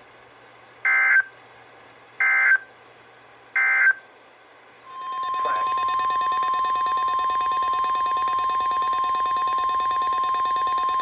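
Emergency Alert System end-of-message code sent three times as short warbling data bursts, then a loud, steady single-pitch alert tone starts about five seconds in and holds, announcing the next weather warning.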